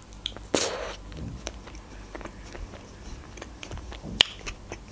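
Close-miked eating sounds of biting into a chocolate-coated ice cream bar on a stick, the chocolate shell cracking, with wet mouth clicks and chewing between bites. A longer crackle comes just over half a second in and a sharp crack a little after four seconds in.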